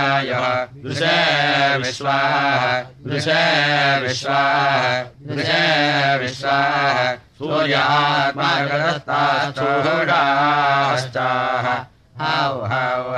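Samaveda gana chanting of the Kauthuma school: a voice sings long melodic phrases whose pitch wavers and glides. It breaks off briefly for breath four or five times.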